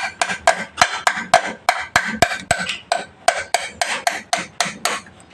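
A hammer striking a stiff bolt in a motorcycle engine's top cover, a steady run of sharp taps about three or four a second that stops near the end, driving home a bolt that tends to jam.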